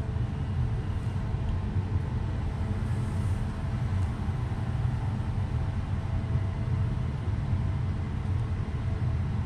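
Steady low rumble of background noise.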